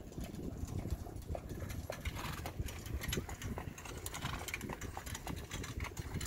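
Hoofbeats of a harness horse pulling a two-wheeled cart past on a dirt track: a run of sharp clip-clops that grows thicker and more distinct from about two seconds in.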